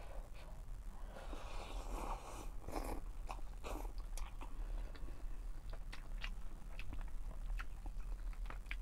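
A person eating cup noodles mixed with rice: slurping noodles about a second in, then chewing, with short sharp clicks of the plastic spoon in the cup.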